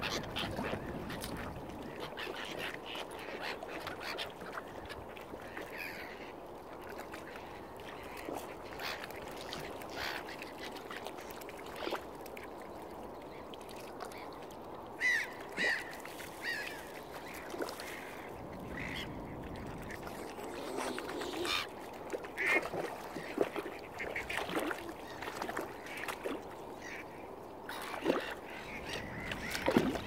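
Waterfowl calling: short separate calls scattered throughout, with the loudest, a quick group of two or three, about halfway through and more calls near the end.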